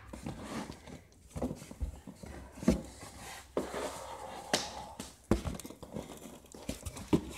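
Cardboard box and packing material being handled during an unboxing: scattered knocks and thumps, about six, with some rustling in between.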